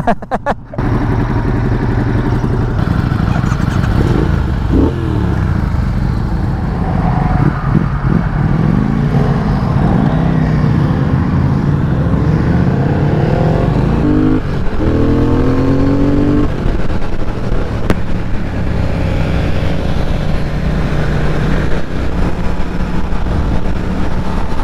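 Triumph Thruxton 1200's parallel-twin engine running at highway speed. Its pitch rises twice as the bike accelerates, with brief breaks between, over steady wind and road noise.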